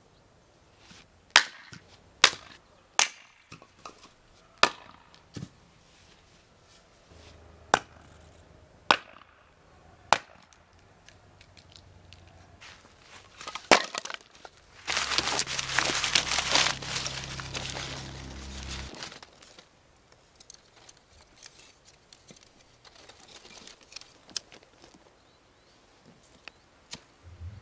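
Axe splitting firewood on a chopping block: a string of sharp, separate chops, about a dozen over the first fourteen seconds. About fifteen seconds in, a loud rushing hiss lasts some four seconds.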